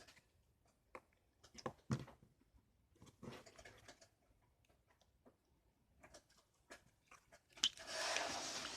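Slime being handled: faint, scattered sticky clicks and squelches, with a louder rustling noise near the end.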